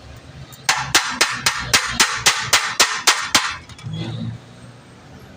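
A quick run of about a dozen sharp metal taps, about four a second, that stops about three and a half seconds in: hammer tapping on a diesel injector nozzle whose tip is stuck and hard to pull out.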